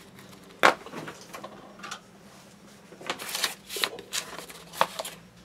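Sharp clicks and knocks from an airbrush and a plastic model being handled on a desktop: one loud knock about half a second in, then a cluster of clicks around three to four seconds in and one more near the end.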